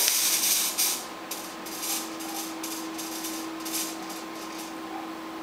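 Fog machine spraying fog: a loud hiss for about the first second, then a string of shorter, quieter hiss bursts, over a steady low hum.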